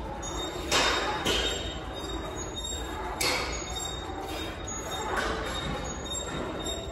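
Gym ambience: a steady low hum with about five short, sharp noises scattered through it.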